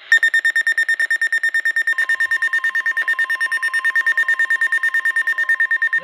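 An Eton NOAA weather radio sounds its alert alarm, a rapid, evenly pulsing high-pitched beep: the sign that it has decoded an incoming warning. About two seconds in, a steady lower tone joins underneath, the broadcast's long warning attention tone coming through the radio.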